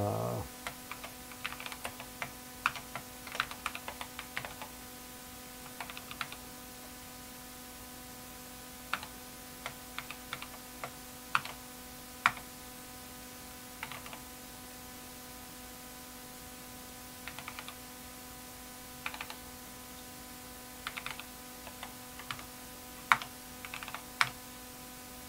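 Typing on an Apple IIe keyboard: irregular runs of key clicks with short pauses between them, over a steady electrical hum.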